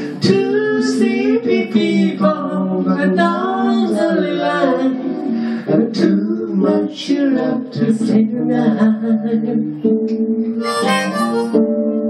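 An acoustic jazz band plays: guitar and ukulele accompaniment under a harmonica taking the melody. About ten seconds in, the harmonica comes to the front with bright, steady held notes.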